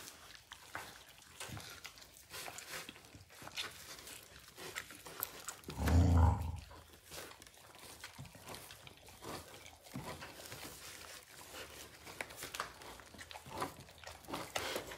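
Two border collies gnawing a large raw meaty bone, their teeth scraping and crunching on it in scattered sharp clicks. A brief, louder low rumble comes about six seconds in.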